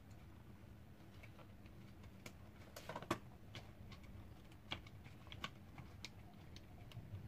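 Faint, scattered clicks and taps of the parts of a Philips SpeedPro vacuum cleaner's brush head being handled as its motor is lifted out, the loudest about three seconds in.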